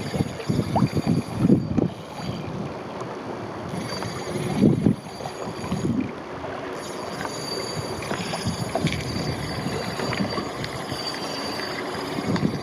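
Wind buffeting the microphone over water sounds from a small boat or kayak on a lagoon, with a few irregular low knocks in the first few seconds and a steady hiss after.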